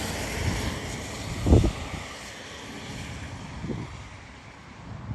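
Wind buffeting the microphone outdoors: a steady hiss with low rumbling gusts, the strongest a short thump about a second and a half in.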